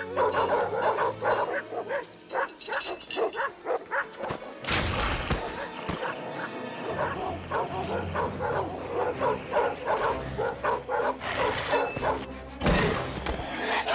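Many dogs barking over a dramatic music score, with two loud crashing bursts of noise, one about five seconds in and one near the end.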